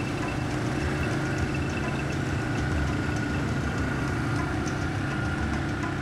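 Quad bike engines running in a steady drone, with a faint high whine above the low hum.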